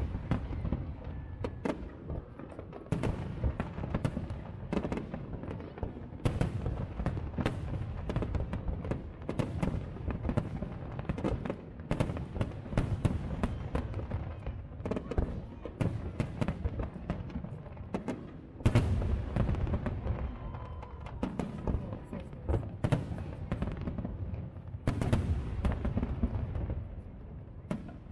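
Fireworks display: a continuous barrage of aerial shells bursting, with sharp bangs and crackle. Heavier booms come about two-thirds of the way through and again near the end.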